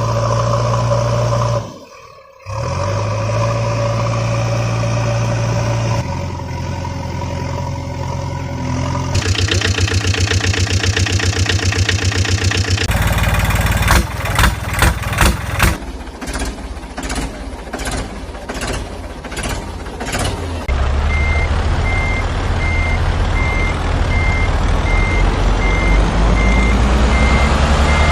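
Heavy vehicle engine sounds that run steadily, then pulse and throb, changing abruptly from one section to the next. From about two-thirds of the way in, a reversing beeper sounds at a steady pace over the engine idling.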